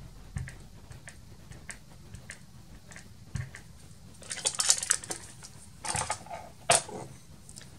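Small clicks and taps of clear-stamping supplies being handled (a stamp, acrylic block and ink pad), with a stretch of rustling about four seconds in and a sharp click near the end.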